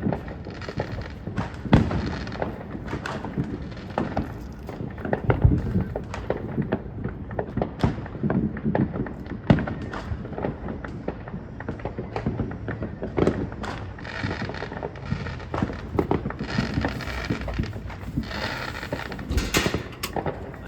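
Fireworks going off: many irregular sharp bangs and crackles over low booms, with denser crackling bursts near the end.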